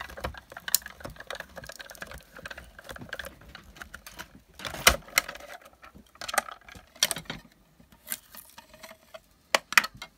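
Irregular clicks and clacks of acrylic cutting plates and a metal tag die being handled and run through a manual die-cutting machine. The loudest clack comes about five seconds in.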